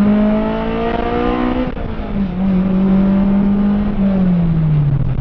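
Honda S2000's four-cylinder engine pulling under load, its note rising, then dropping sharply about a second and a half in, holding steady, and falling away near the end as the car slows.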